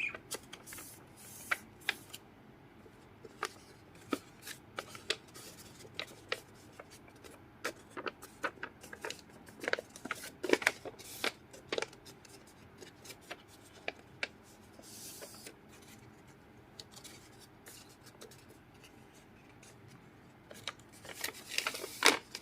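Handmade paper bag being handled and shaped: irregular rustles, crinkles and light taps of the paper, with a louder burst of rustling near the end.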